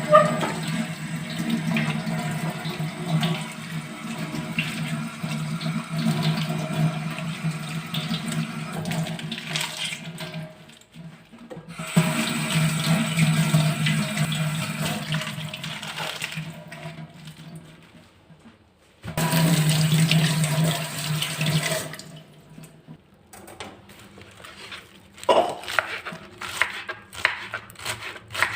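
Tap water running into a sink. It breaks off twice and comes back, then shuts off about three-quarters of the way through, followed by light knocks and clatter.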